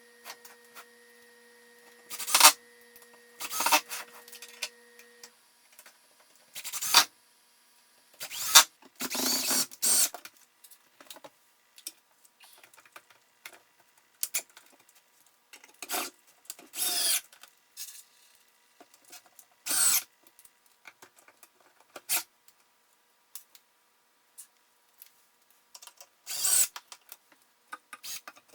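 Intermittent handling noises from tools and hardware: short separate scrapes, rubs and clicks, some lasting up to about a second, with quiet gaps between them.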